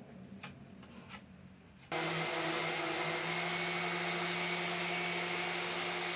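A few faint light scrapes, then an electric motor switches on suddenly about two seconds in and runs steadily with a loud rushing sound and a steady hum.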